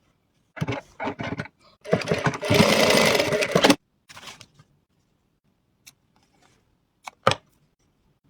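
Sewing machine stitching in a few short bursts, then running steadily for about two seconds before stopping, followed by a brief burst and a few single clicks.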